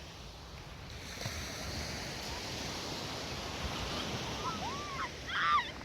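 Sea surf washing onto a beach, swelling about a second in and continuing as a steady wash. Near the end comes a brief high-pitched vocal call.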